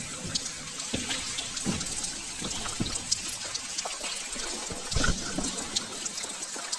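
Water dripping like rain in a wet railway tunnel: a steady splashing hiss with many scattered drips, and a few low thumps, the loudest about five seconds in.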